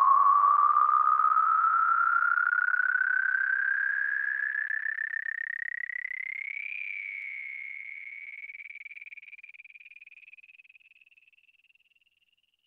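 A single wavering synthesizer tone closing out a rock song, gliding slowly upward in pitch as it fades out, gone just before the end.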